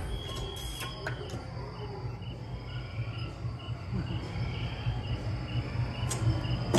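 Cricket chirping sound effect from the ride's night-scene soundtrack, short high chirps repeating about three times a second after a brief steady trill, over a continuous low rumble.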